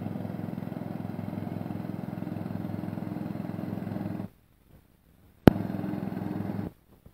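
Ride-on garden tractor engine running steadily while towing a box trailer. The sound cuts off abruptly about four seconds in, comes back with a sharp click about a second later, and cuts off again near the end.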